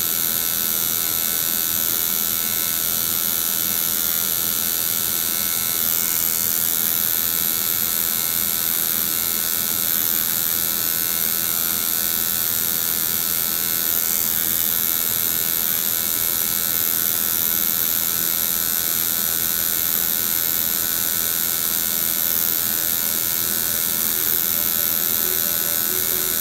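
Electric tattoo machine buzzing steadily as it inks the skin.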